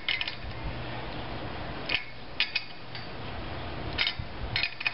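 Wrench clicking and clinking against the steel nuts and bolts of an antenna rotor's mast clamp as they are snugged up. It comes as a handful of short metallic clicks, spaced irregularly.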